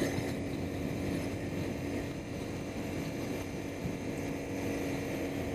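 A 2012 Honda CBR250R's single-cylinder engine running at a steady cruise, under a steady rush of wind and road noise. The engine's pitch does not rise or fall.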